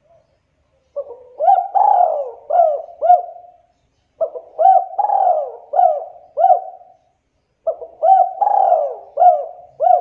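Spotted dove cooing: three phrases about three and a half seconds apart, each a run of several rising-and-falling coos.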